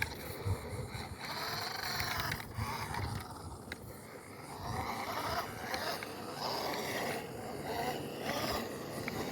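Toy-grade RC car's small electric motor and gearbox whining in repeated bursts that rise and fall in pitch as it drives.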